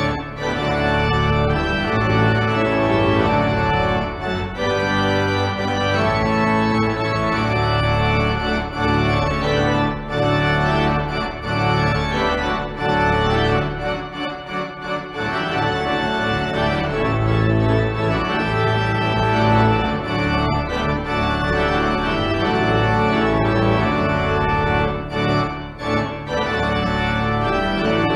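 Organ playing slow, sustained chords.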